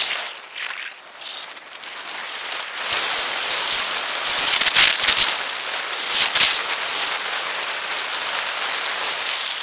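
Wind and rolling noise picked up by a camera riding along a paved path. It is a steady hiss that grows louder about three seconds in, broken by several louder crackling bursts.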